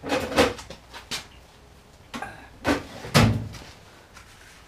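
Clear plastic storage box and its loose lid being handled: a run of hollow plastic knocks and clatters, the loudest and deepest a little over three seconds in.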